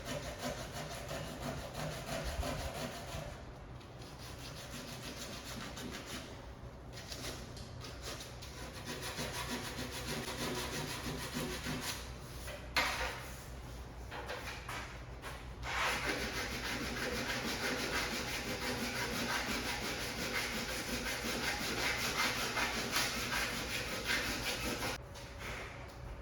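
Sanding fiberglass by hand: steady scraping strokes with a few short pauses.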